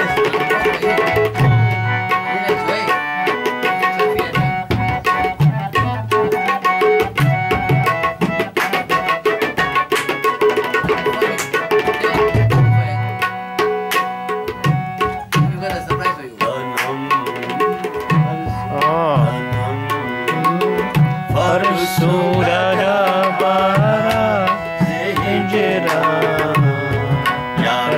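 Tabla and harmonium playing together: steady harmonium chords under a running tabla rhythm. From about two-thirds of the way through, a man's voice comes in singing in wavering, ornamented lines, the opening of a ghazal.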